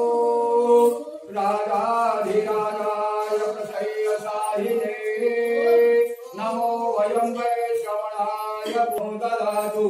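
A single voice chanting a Hindu devotional hymn in long, sung, melodic phrases, pausing briefly about a second in and again just after six seconds.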